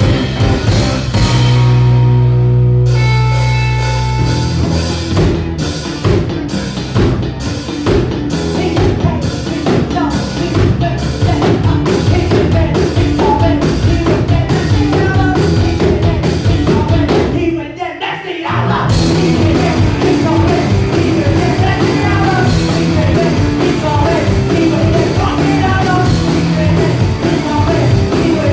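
Live rock band playing loudly. A held chord opens, then drums come in with a steady beat; the band cuts out for about a second just past the middle and comes back in full.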